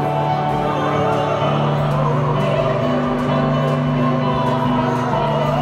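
Music: a singing voice over long held accompaniment notes, with a steady low note underneath.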